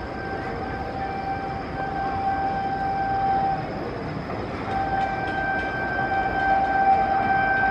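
Electric locomotive's air horn sounding two long, steady blasts, the second starting about a second after the first ends, over the rising rumble of an approaching passenger express train.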